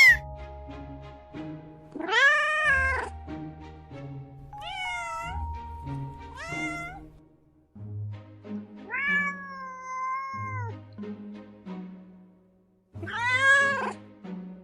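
A domestic cat meowing about five times, one call at a time, with a longer drawn-out meow near the middle. Background music plays underneath.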